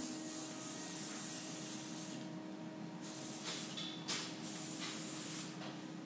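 Aerosol hairspray being sprayed onto the hair in long hissing bursts: one of about two seconds, then after a short pause a second, broken into shorter puffs.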